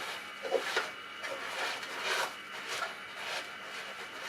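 Irregular rubbing and a few light knocks from handling a large textile bag of moisture-absorbing desiccant as it is fitted in beside an electrical outlet.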